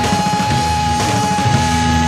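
Rock music soundtrack, with one high note held steadily throughout.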